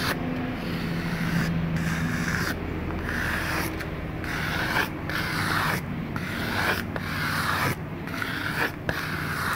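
Recorded mystery sound effect of repeated gritty scraping or rubbing strokes, about one a second, over a low steady hum that fades after the first couple of seconds.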